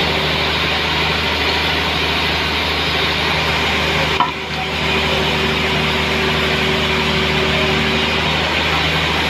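Homemade sawmill cutting through a large trembesi (rain tree) log: a steady, dense sawing noise over the machine's evenly running motor hum, with a brief dip about four seconds in.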